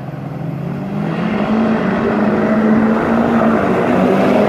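Two diesel pickup trucks accelerating hard down a dirt drag strip. The engine note rises in pitch over the first two seconds and then holds, and the sound grows steadily louder as they come down the track.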